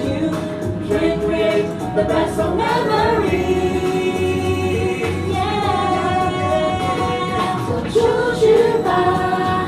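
A recorded song playing, with sung vocals over instrumental backing.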